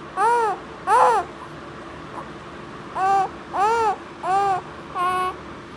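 A baby vocalizing in six short calls, each rising then falling in pitch: two in the first second, then after a pause of about two seconds, four more in quick succession.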